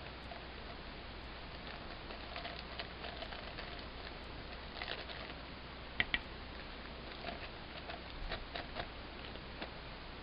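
Scattered light clicks and taps of small plastic items being handled by hand, with two sharp clicks close together about six seconds in.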